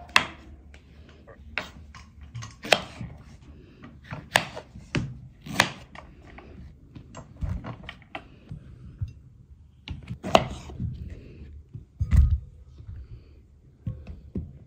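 Irregular knocks and clatter of kitchen work, with a couple of duller thumps.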